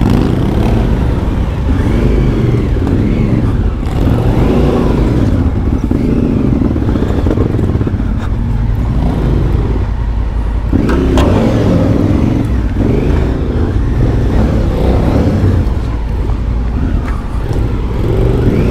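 Adventure motorcycle engine at low trail speed, the revs rising and falling over and over as the throttle is worked to get over fallen branches on the track. A sharp knock sounds about eleven seconds in.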